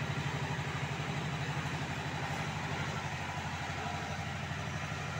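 Engine of a small replica steam-style toy locomotive idling steadily, with a fast, even throb.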